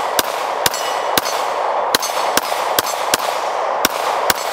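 Sig Sauer P320 M18 9mm pistol fired in a steady string, about nine shots roughly half a second apart, with hits clanging on steel targets.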